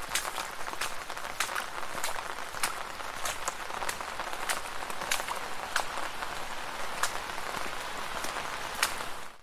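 Steady rain falling on a street, an even hiss of rain with many separate drops ticking sharply on hard surfaces. The sound cuts out abruptly right at the end.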